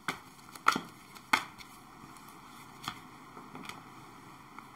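A few light, separate clicks and taps of tarot cards being handled and laid down on a table, over a quiet room.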